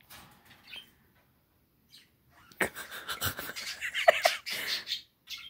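Pet bird chirping a few short notes among rustling and fluttering noises, which start a little over two and a half seconds in.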